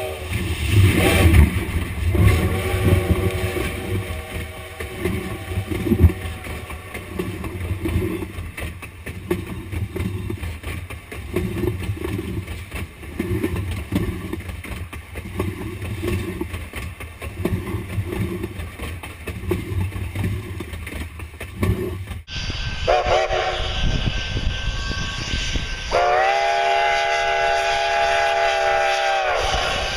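Narrow-gauge steam locomotive No. 480 blowing its chime whistle, then the train rolling directly overhead: a low rumble with a regular clatter of wheels as the cars pass. Near the end the whistle sounds again, a chord held for several seconds.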